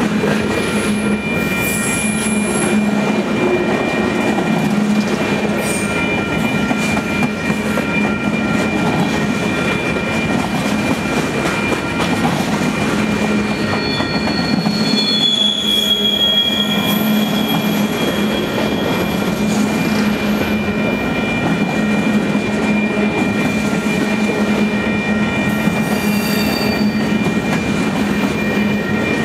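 Freight train cars rolling past at close range: the steady rumble and clatter of steel wheels on the rails, with a high wheel squeal held throughout. Shorter, higher squeals come in about halfway through and again near the end.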